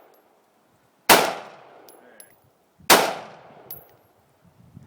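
Two shots from an AR-15 rifle, about two seconds apart, each loud crack trailing off in a fading echo.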